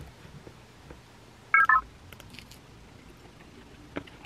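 Two short electronic beeps in quick succession about one and a half seconds in, the second a little lower in pitch, like a phone notification tone. A single sharp click comes near the end, over quiet room tone.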